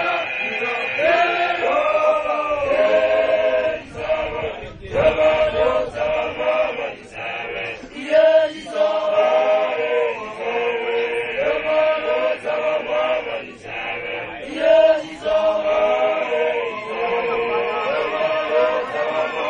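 A large group of Basotho initiates (makoloane) chanting a song together in many voices, the phrases broken by short pauses.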